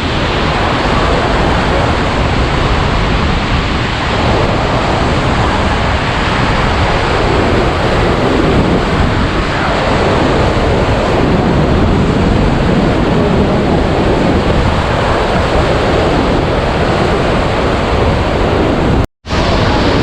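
Loud, steady rush of the Iguaçu Falls' water crashing close by, mixed with wind buffeting the action-camera microphone; it cuts out for an instant near the end.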